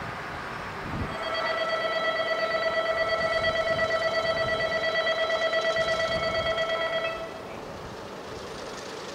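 Japanese railway station departure bell ringing with a rapid, trembling ring, starting about a second in and stopping about six seconds later: the signal that the train is about to depart.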